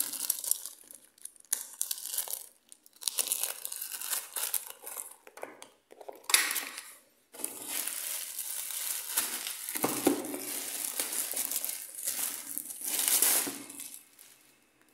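Thin clear plastic bag crinkling and rustling in irregular bursts as a boxed toy figure is worked out of it and handled. The crinkling fades out near the end.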